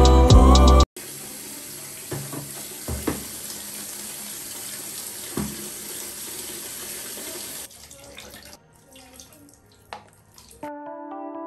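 Water running from a bathtub spout into a plastic spin-mop bucket: a steady rush with a few light knocks, stopping about seven seconds in.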